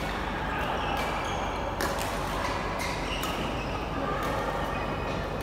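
Badminton rackets striking a shuttlecock in a doubles rally: several sharp hits, a second or so apart, echoing in a large hall over a murmur of voices.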